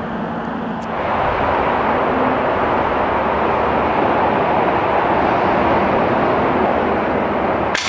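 A steady rushing noise with no clear pitch. It swells about a second in and then holds even.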